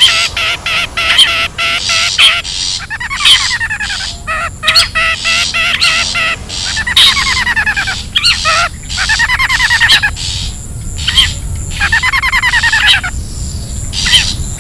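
Long-tailed shrike calls: fast runs of sharp repeated chirps broken by four harsh, scratchy scolding calls that slide down in pitch, about every two to three seconds.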